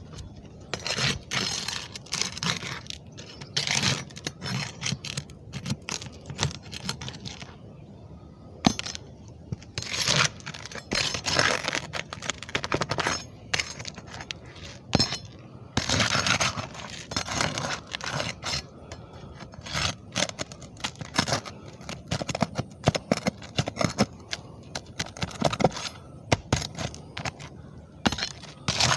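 Repeated scraping and cracking with sharp metallic clinks, coming in irregular bursts every second or so: material being pried and pulled apart by hand.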